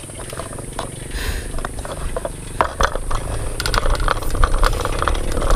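A bicycle being ridden: irregular clicks and rattles from the bike, becoming busier after a couple of seconds, over a low rumble.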